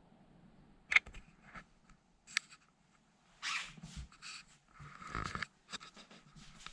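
Clicks, knocks and short scrapes as a manual portable typewriter and its hard-shell case are handled. There is a sharp click about a second in, then scattered clacks and two brief scraping rustles.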